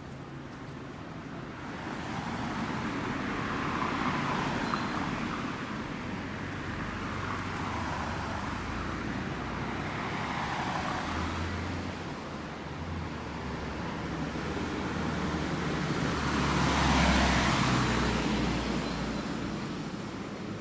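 Cars passing by on a road one after another, each swelling and fading away, the loudest pass coming near the end.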